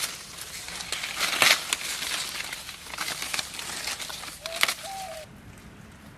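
Large green tree leaves rustling and crackling as they are plucked by hand from a branch, with a few sharp snaps as the stalks break. The rustling stops about five seconds in.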